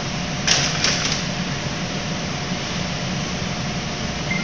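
Steady mechanical hum of a commercial kitchen's ventilation, with two brief sharp noises about half a second and a second in.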